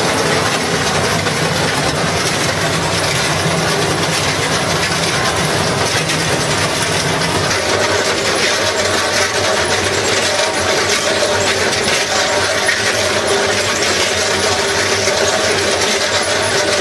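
Heavy machinery running under load: a loud, steady grinding clatter with a faint whine held through it.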